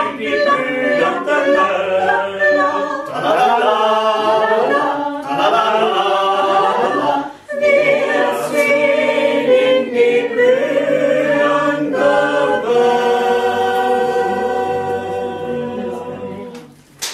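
Small mixed choir of men's and women's voices singing together, with a brief breath about halfway through, then closing on a long held final chord that fades away near the end.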